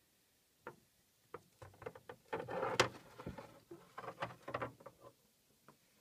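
Quiet, irregular little taps and scratches of a hamster scrambling over miniature dollhouse furniture and a wooden floor, thickest in the middle.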